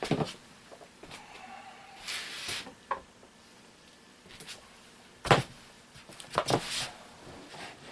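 Scattered footsteps, knocks and rustles on a wooden floor, the loudest a sharp knock about five seconds in.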